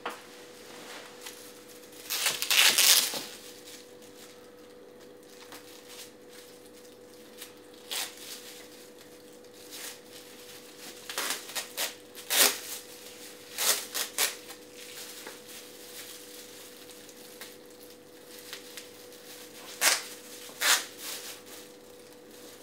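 Hands handling small items on a wooden table: a loud rustling, tearing sound about two seconds in, then scattered taps and clicks. A faint steady hum runs underneath.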